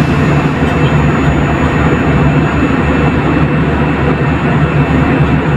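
Steady hum and rush of a jet airliner's turbofan engines and airflow in flight, heard inside the cabin.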